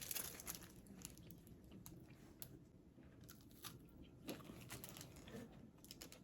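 Faint crunching as a small buttery cookie is bitten and chewed: a quick cluster of crunches at the start, then scattered single crunches.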